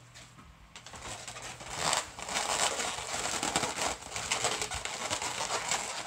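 Latex twisting balloons squeaking and crinkling as they are twisted and rubbed together by hand: a dense run of rubbery squeaks and rustles starting about a second in.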